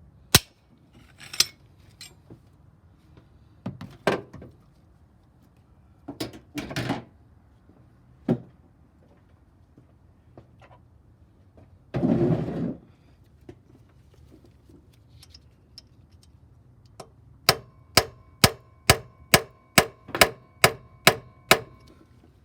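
Hammer blows on metal: scattered knocks and clanks, then near the end a run of about ten even strikes, a little over two a second, each with a short metallic ring.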